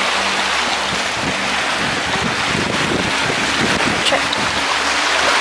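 Wind blowing over the microphone, with small waves lapping on a lakeshore; a gust buffets the microphone about halfway through.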